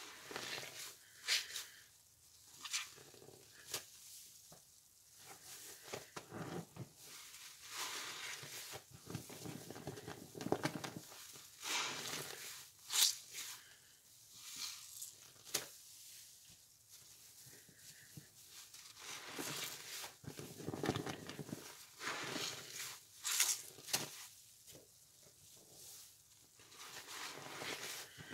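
Wet, sudsy sponges being squeezed and worked by hand: irregular squelching and crackling in uneven bursts with short pauses.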